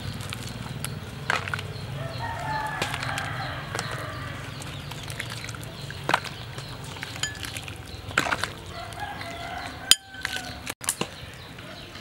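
A rooster crows once, about two seconds in, and chickens cluck nearby, over a low steady rumble. A few sharp clicks come from a metal ladle against the pot and bowl.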